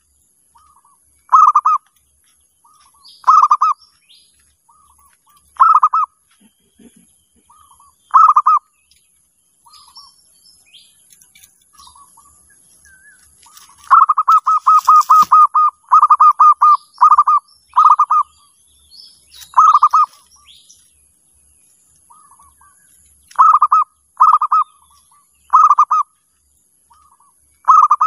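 Zebra dove (perkutut) cooing: loud rolling coo phrases, each led by a softer note, repeated every couple of seconds. Around the middle comes a quick run of about ten coos in a row. Other small birds chirp faintly behind.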